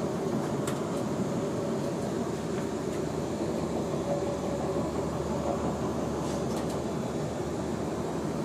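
Passenger train running along the track, heard from inside the carriage: a steady rumble, with a few light clicks.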